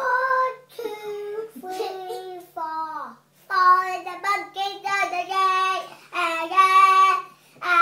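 Young boy singing solo, making word-like sounds in place of lyrics he doesn't know, in a string of held notes with short breaks between phrases.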